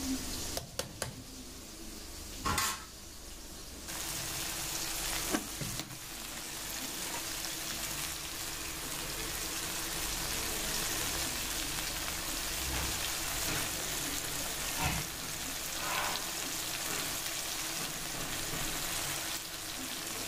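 Chopped onion and tomato sizzling in hot oil in a kadhai, a steady frying hiss. A few sharp knocks of a ladle or utensil come in the first seconds, before the sizzling sets in about four seconds in.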